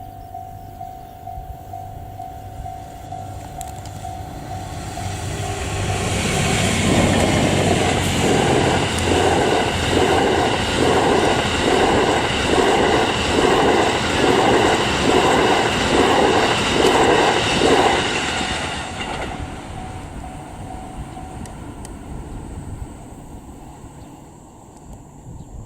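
Level-crossing warning bell ringing steadily as an EF81 electric locomotive and its sleeper coaches pass. The train's noise builds to a loud rumble with a regular wheel clatter over the rail joints, about one beat a second, then fades after about 19 seconds. The crossing bell stops a couple of seconds later.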